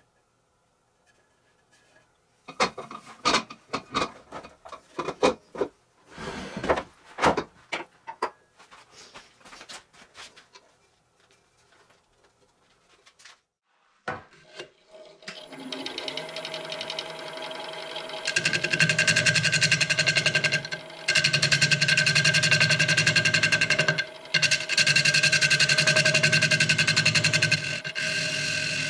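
Knocks and clicks of pieces being handled, then a power tool starts and runs steadily with a fast, even rhythm, cutting out briefly twice.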